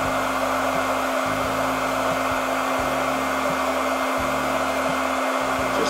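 Handheld electric heat gun running, blowing a steady rush of hot air with a steady hum under it.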